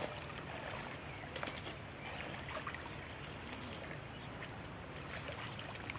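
Rural outdoor ambience: faint bird calls, including low dove-like coos, over a steady soft background hiss, with a few faint clicks scattered through.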